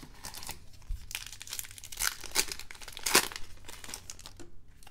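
A Topps Allen & Ginter baseball card pack being torn open, its wrapper crinkling in a run of short rustles, the sharpest about three seconds in, as the stack of cards is slid out.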